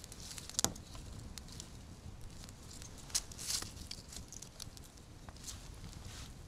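Dry sticks knocking and clicking against each other as they are stood up into a hut-shaped fire lay over small burning kindling, with a sharp crack about half a second in and another around three seconds in.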